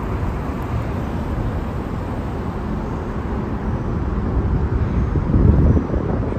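Road traffic noise, a steady rumble beneath an elevated highway, with a louder low rumble about five seconds in.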